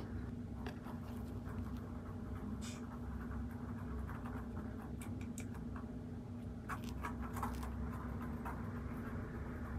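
Faint scratching and small clicks of cat-litter granules and a plastic litter scoop being handled, over a steady low hum, with a short flurry of clicks about seven seconds in.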